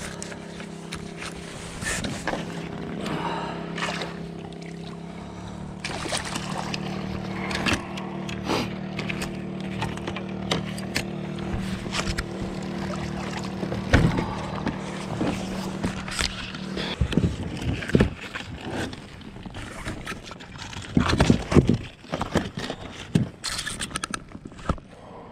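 Knocks, rustles and clatter of a red sea bream being landed and handled in a sit-on-top kayak. A steady low hum runs under the first two-thirds and stops, and a quick burst of loud knocks comes near the end.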